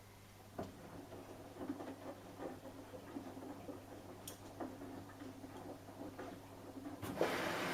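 Samsung Eco Bubble washing machine at the start of its delicate cycle. A low hum, then irregular soft taps and clicks from the machine. Near the end a steady rush of water begins as the machine starts filling.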